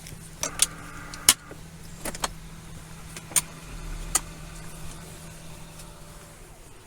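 Patrol car interior with a steady engine hum, broken by a scatter of sharp clicks and knocks and a brief whir in the first second.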